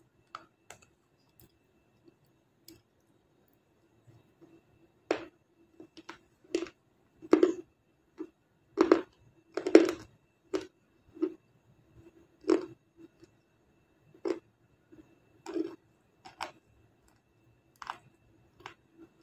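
Close-up chewing of a dry, crunchy slab of black star: a run of sharp crunches, a few faint ones at first, then many from about five seconds in, loudest a few seconds later. A faint steady hum lies under them.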